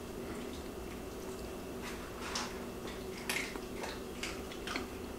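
Close-miked chewing of a mouthful of chicken stew with rice: soft wet mouth clicks and smacks, more frequent in the second half, over a faint steady hum.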